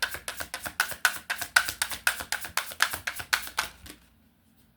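A deck of tarot cards being shuffled by hand in quick, even strokes, about five card slaps a second, stopping just before the end.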